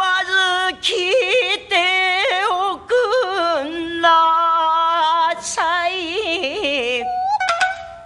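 Rōkyoku (naniwa-bushi) sung passage by a female singer with shamisen accompaniment: long, wavering phrases with heavy vibrato and sweeping pitch ornaments, broken by short breaths. The singing tails off about seven seconds in.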